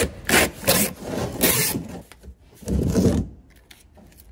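An 18×12×10 corrugated cardboard shipping box being folded into shape by hand, its flaps scraping and rubbing against each other. There are several short strokes in the first two seconds, then a longer one around three seconds in.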